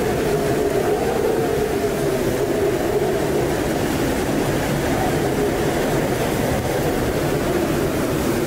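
Hurricane-force wind and driving rain blowing steadily, with a wavering howl drifting slowly up and down in pitch through the rush.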